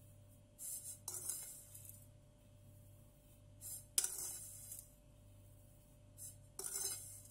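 Metal cutlery scraping and clinking against a nonstick frying pan, in short bursts a second or two apart, as toasted shredded kadayıf is scraped out. The sharpest clink, about four seconds in, rings briefly.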